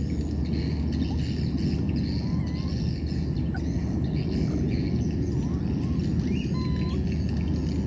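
Steady low rumbling outdoor noise, with faint short chirps and brief rising whistles scattered through it.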